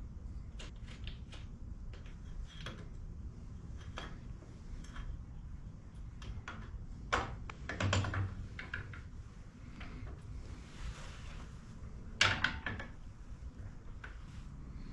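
Hand tools and metal parts handled during a motorcycle rear suspension service: scattered light clicks and taps, with two louder clattering knocks about seven and twelve seconds in.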